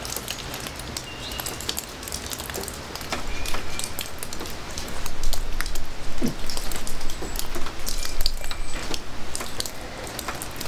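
Scattered light clicks, scrapes and rustles of hand work as a wire and screwdriver are handled at a small metal set-screw splice connector, growing busier about halfway through.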